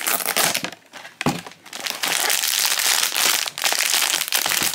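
Silver foil blind bag crinkling loudly as hands pull it from its box and handle it, a few short rustles at first, then dense, continuous crinkling from about two seconds in.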